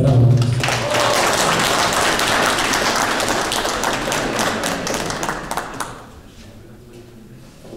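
A small group of people applauding by hand-clapping for about six seconds, then dying away.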